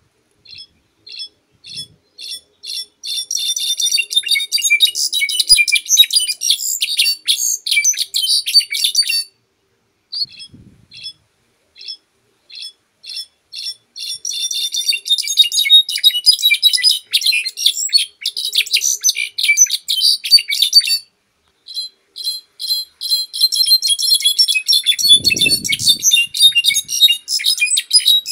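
Brown-backed solitaire (jilguero) singing three long songs. Each opens with slow, spaced single notes that quicken into a fast, tumbling jumble of high ringing notes.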